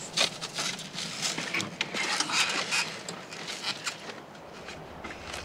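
Rustling and scuffing with scattered light clicks as a rider climbs onto a parked motorcycle; no engine running.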